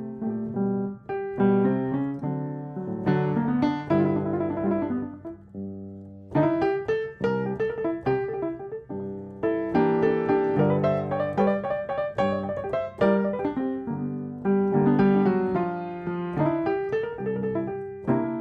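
Solo piano music with no words: notes and chords struck one after another, each ringing out and fading.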